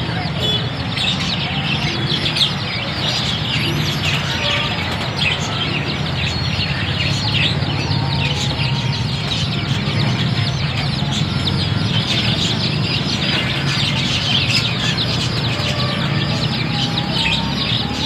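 A cage full of young chicks peeping all at once: a dense, constant chorus of short, high, downward-sliding cheeps, with a low steady hum underneath.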